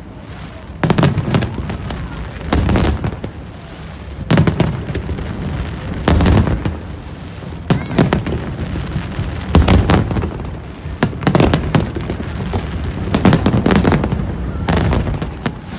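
Aerial fireworks shells bursting in a steady series of loud bangs, about one every one and a half to two seconds, each trailing off in echoes.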